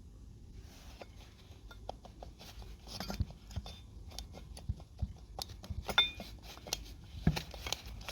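Irregular clicks and light knocks of hard objects being handled, a few sharper than the rest, over a faint low hum.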